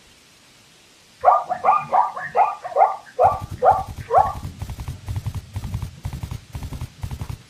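A zebra calling: about eight short calls in quick succession, starting about a second in. Then the rapid hoofbeats of a zebra galloping, which start about three seconds in and carry on to the end.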